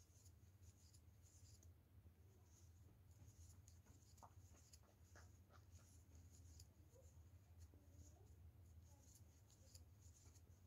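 Faint light scratching of a crochet hook drawing yarn through stitches while working double crochets, over a low steady hum.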